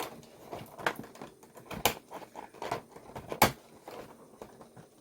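Small plastic clicks and taps from handling a doll and its accessories and packaging, irregular, with a few louder knocks about one, two and three and a half seconds in.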